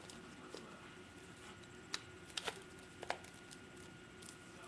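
A few faint plastic clicks and taps from handling a V-Force Grill paintball mask while the lens is fitted into its frame: one about two seconds in, a quick pair just after, and another a little later.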